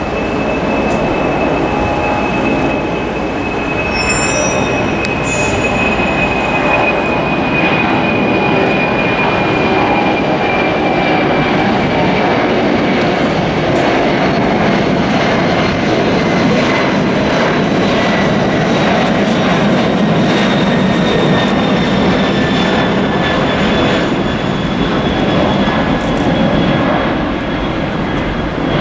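A Boeing 747-400 freighter's four jet engines at climb power as it climbs away after takeoff: a steady, loud roar with a thin whine that slowly falls in pitch.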